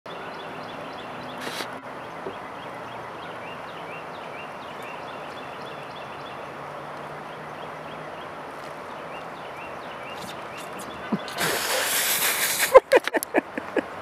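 Steady river-side ambience, the rush of flowing water, with small high chirps repeating about twice a second. About eleven seconds in, a louder rushing noise lasts just over a second, followed by a handful of sharp knocks.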